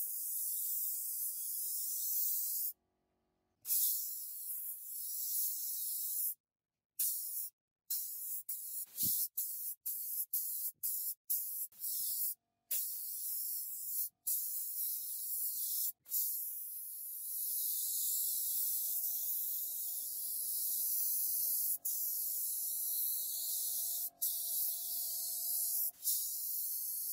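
Compressed-air siphon-feed spray gun hissing as it sprays paint, in stretches broken by several abrupt stops. A faint steady hum runs underneath in the second half.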